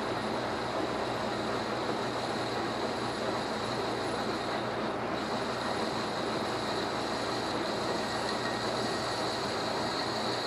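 American Pacemaker engine lathe running steadily with a heavy-wall steel tube spinning in its four-jaw chuck while a tool takes a light chamfer cut on the inside edge of the bore. A faint high whine joins about halfway through.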